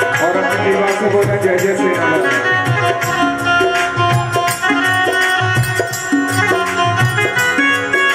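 Instrumental interlude of Hindu devotional jagran music: a keyboard plays a melody in steps over a steady hand-drum beat, with small hand cymbals jingling along.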